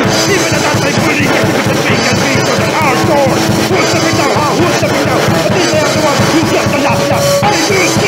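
Loud, fast rock music from a band recording, with rapid drumming under guitars and a pitched line that bends up and down.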